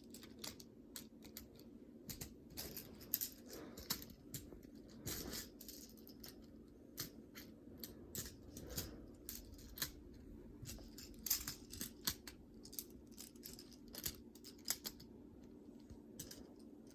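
Magnetic building-toy pieces clicking and clattering as they are handled and snapped together, in quick irregular clicks, over a faint steady hum.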